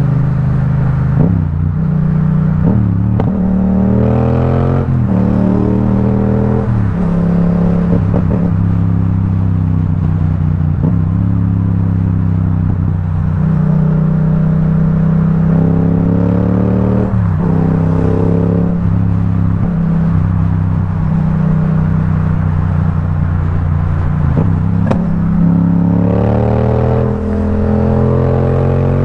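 Yamaha XSR700's 689 cc parallel-twin engine through an Akrapovic carbon full-system exhaust with no silencer insert fitted, ridden in traffic. The exhaust note climbs several times as the rider accelerates, drops back at each gear change, and runs steady at cruising speed between the pulls.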